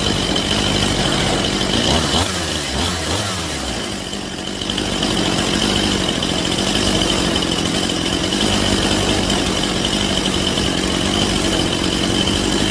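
Stihl MS 181 C chainsaw's two-stroke engine idling while its idle speed screw is set to about 2,800 rpm. The engine note wavers and dips briefly a few seconds in, then holds steady.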